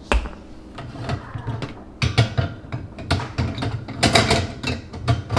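Bottles and jars knocking and clinking against a pull-out wire-basket rack as they are lifted out, with the metal rack rattling. There is a knock right at the start, then a run of sharp clicks and knocks, thickest in the second half.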